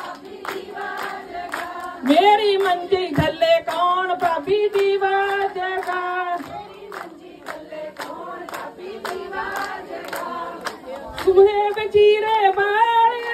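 A group of women singing a Punjabi folk song together, with hand clapping in a steady beat under the singing.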